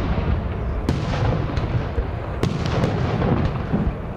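Aerial fireworks shells bursting overhead: a series of sharp bangs about a second apart over a continuous low rumble.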